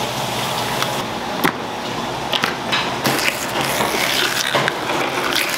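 Steady kitchen background noise with a rushing hiss and scattered sharp clicks and taps from handling on the cutting board.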